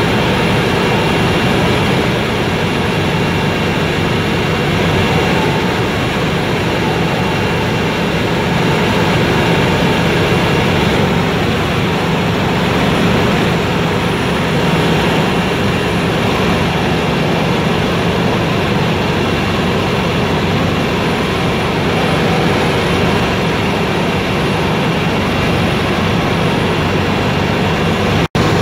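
Helicopter in flight heard from inside the cabin: engine and rotor noise running steady and loud, with faint high steady whines on top. The sound cuts out for an instant near the end.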